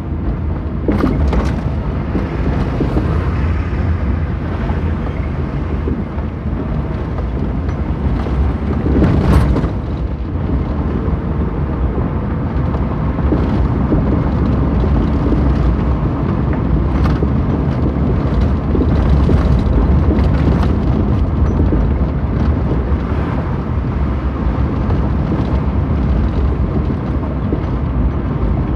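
Road and engine noise heard from inside a moving car: a steady low rumble, with a few sharp knocks and rattles as it rides over rough, patched pavement.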